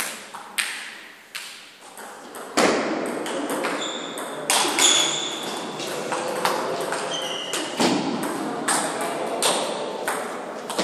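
Table tennis rally: the ball clicks sharply and rapidly off the table and the rubber-faced paddles in an irregular back-and-forth.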